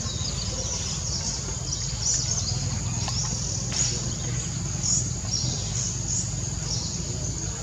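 Steady high-pitched insect drone, with short high chirps every second or so and a faint knock about three seconds in.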